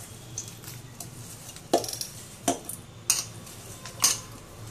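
Hand mixing and kneading rice-flour dough in a stainless steel bowl, the steel bowl clinking and knocking sharply four times as it is worked.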